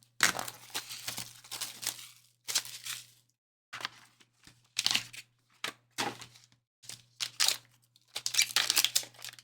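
Packaging of a trading-card box being torn open: a series of irregular rips and crinkles with short pauses between them.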